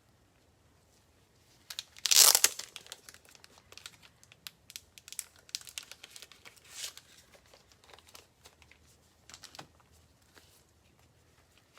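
Plastic trading-card packaging being torn open and crinkled by hand. There is a loud rip about two seconds in, then on-and-off crinkling and light handling clicks that die away near the end.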